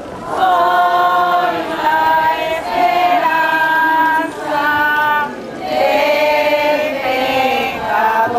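A choir singing, mostly women's voices, in long phrases broken by brief pauses.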